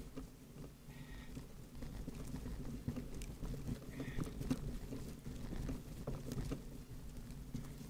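Bicycle rolling over a rough, muddy dirt track: a steady low rumble of tyres and frame with irregular clicks and rattles, and two short squeaks, about a second in and about four seconds in.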